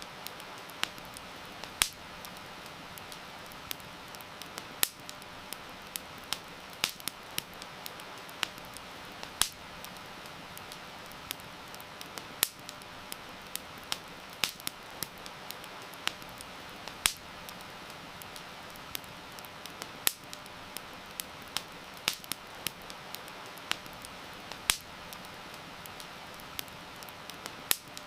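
Wood campfire crackling, with sharp irregular pops several times a second over a steady hiss of rain.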